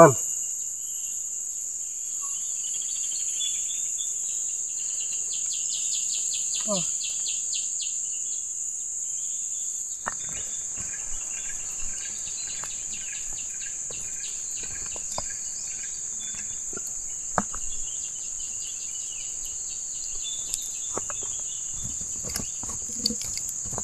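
Insects droning in one steady high-pitched tone, with fast pulsed chirping in the first few seconds. From about ten seconds in, small scattered crackles and pops join in, from the wood campfire and embers under the grilling skewers.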